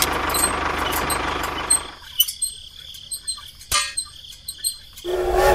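A small motor runs steadily with a low rhythmic pulse for about two seconds, then stops. After it stops there are scattered light clicks, faint high chirps and one sharp knock.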